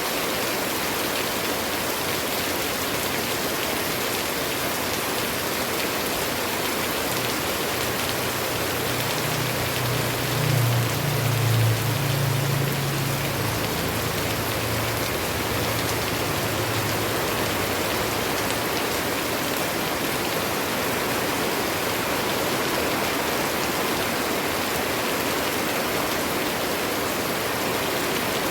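Steady rain falling, an even hiss with no let-up. About a third of the way in, a low rumble swells, peaks and fades out by about halfway.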